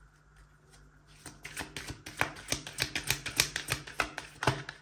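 A deck of oracle cards being shuffled by hand: a quick, uneven run of small clicking and tapping card sounds, starting about a second in and stopping near the end.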